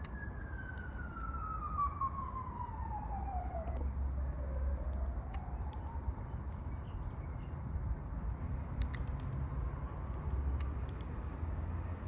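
Emergency-vehicle siren wailing, its pitch sliding down over about four seconds and then rising again before it fades, over a steady low rumble of road traffic, with a few short clicks.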